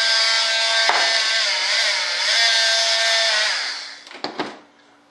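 Handheld electric cutting tool running as it cuts a gear door out of a molded part, its pitch wavering with the load. A little over three seconds in it is switched off and winds down, and two short knocks follow.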